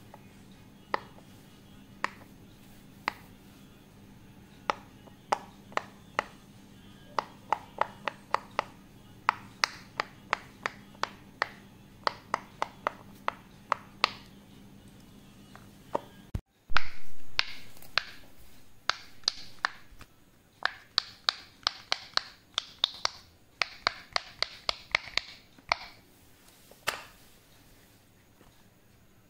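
Silicone pop-it fidget toy bubbles pressed through one at a time with a fingertip, making a run of sharp little pops, from about one a second to several a second. About halfway through there is a brief loud rustle of handling, then the pops go on, brighter and higher.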